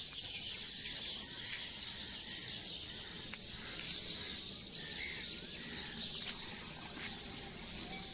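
Night insect chorus: crickets keeping up a steady, shrill hiss, with a few faint chirps over it.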